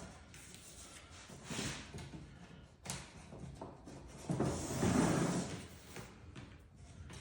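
CatCubby panels being handled and fitted: a few light knocks and a sharp click, then a louder scraping slide about four seconds in.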